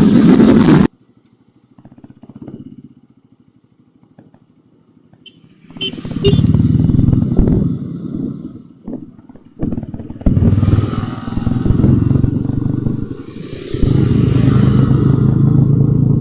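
Motorcycle engines running loud. The sound cuts off abruptly about a second in, stays much quieter for about five seconds, then comes back and rises and falls repeatedly, as if revved or passing.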